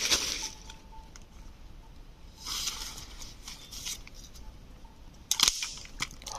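Dry leaf litter rustling and crunching in a few short bursts as it is handled, with a sharp cluster of crackles about five seconds in.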